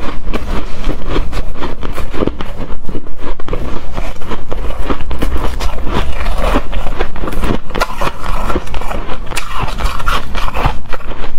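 Hard, frosty shaved ice being bitten and chewed: a dense, continuous run of crisp crunches.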